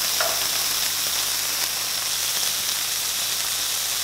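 Halloumi slices and bacon rashers frying in a non-stick frying pan, sizzling steadily.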